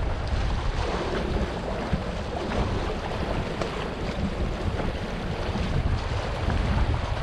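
Wind buffeting the microphone in a steady, gusting rumble, over the wash of choppy sea waves against shoreline rocks.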